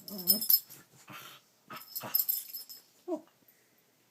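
A dog making wavering, wheezy growl-grumbles, with scuffling noises about two seconds in and a short rising yip just after three seconds. This is typical of a dog play-fighting.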